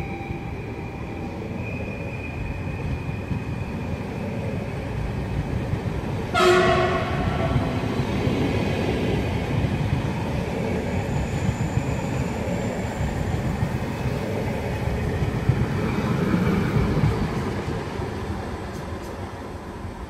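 PKP Intercity electric multiple unit pulling out of the station: a steady low rumble of the moving train, with one short, loud horn blast about six seconds in.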